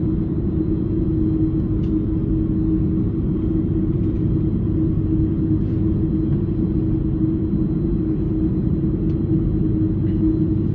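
Cabin noise of an Airbus A330-200 on the ground before takeoff, engines running: a steady low rumble with a constant hum.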